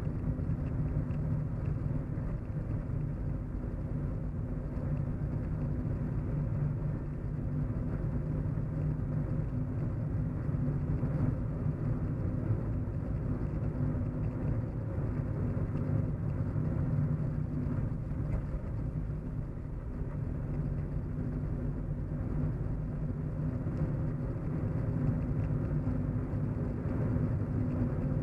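Steady low hum of a car in motion as heard inside the cabin: engine drone and tyre-on-road rumble at an even cruising pace.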